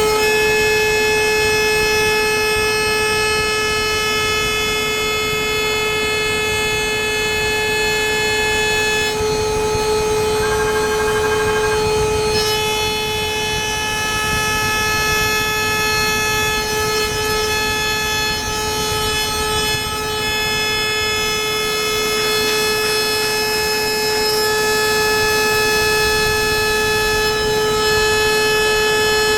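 CNC milling machine spindle running at high speed while milling on a fourth (rotary) axis: a loud, steady whine with many overtones. The upper tones shift briefly about nine seconds in, then settle back.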